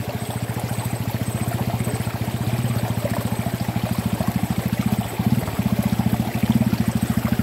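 A vehicle engine running at a steady speed, a fast, even low pulsing; it dips briefly about five seconds in, then comes back louder.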